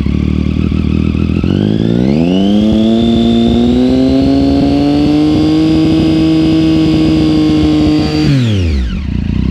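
Triumph Street Triple's three-cylinder engine, its exhaust baffle removed, revved up from idle about a second and a half in and held at steady high revs for about six seconds, then dropped back to idle near the end.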